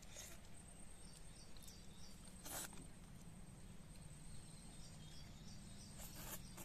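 Quiet outdoor scene: three short slurps as ripe papaya flesh is bitten and sucked, over a steady low hum and faint chirping in the background.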